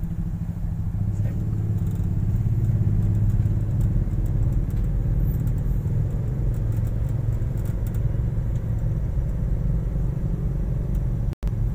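Steady low rumble of a Nissan car's engine and tyres, heard from inside the cabin while it drives. The sound drops out for an instant near the end.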